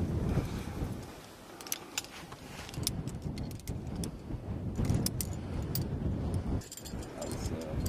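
Metal carabiners of climbing quickdraws clinking and jangling in several short clusters of clicks as they are handled and clipped onto a climbing harness's gear loops.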